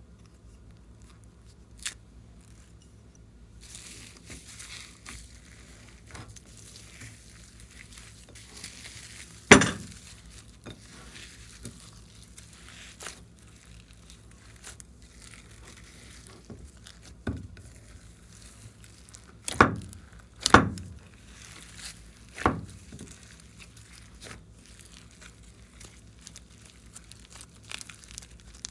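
Hands squishing and stretching clear slime, with soft crinkling and crackling throughout and several sharp, loud pops, the loudest about a third of the way in and two close together past the middle.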